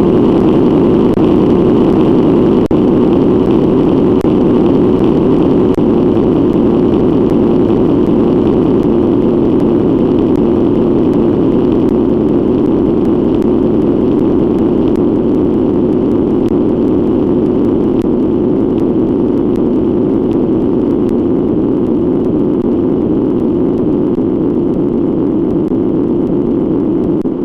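A hiccup sound effect repeated so fast that the hiccups merge into one loud, steady droning noise, with no single hiccup standing out.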